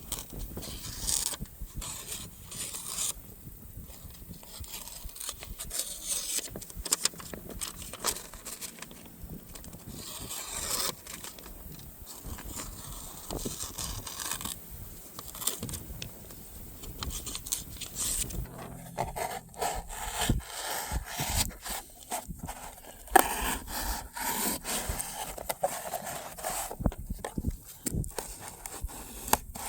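Go Mai Damascus hunting knife blade slicing through a sheet of Tyvek: a run of irregular scraping, rasping cuts with rustling of the sheet.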